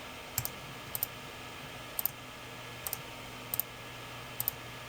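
Computer mouse being double-clicked, six quick pairs of clicks about a second apart, over the steady hum and hiss of a running desktop PC.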